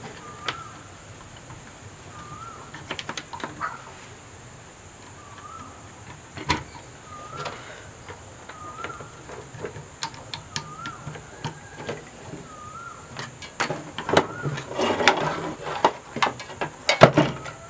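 A bird calling over and over, a short rising-and-falling chirp every second or two. Scattered clicks and knocks of wires and parts being handled on a TV chassis run alongside, busier and louder near the end.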